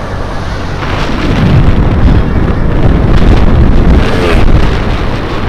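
Heavy wind buffeting the microphone: a loud, uneven low rumble with a steady rushing hiss.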